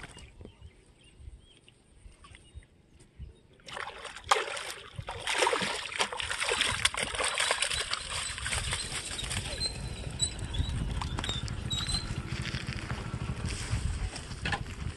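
Water splashing and sloshing as a fish thrashes at the surface and is scooped into a mesh hand net. It is fairly quiet for the first few seconds, then loud, with many sharp splashes.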